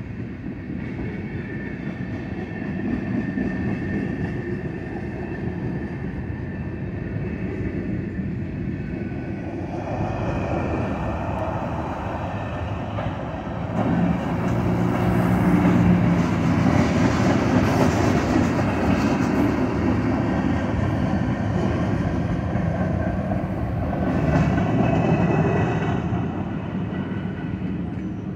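Norfolk Southern mixed freight train's tank cars and boxcars rolling past over a road grade crossing, heard from inside a car. The rolling grows louder about ten seconds in, is loudest from about halfway, and eases off near the end.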